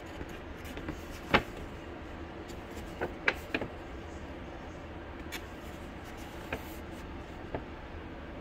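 Steady low hum with scattered sharp clicks and taps. The loudest comes about a second and a half in, three follow close together around three seconds in, and a few fainter ones come later.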